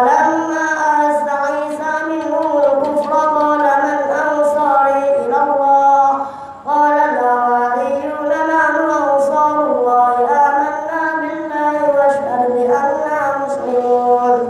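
A boy's voice reciting the Quran aloud in a slow, melodic chant, as the imam leading congregational prayer. It comes in two long, wavering phrases, with a short pause for breath about six and a half seconds in.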